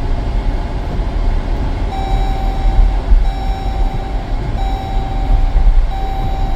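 Loud, steady low rumble with an electronic warning beep starting about two seconds in, repeating in long pulses of roughly a second each with short gaps between.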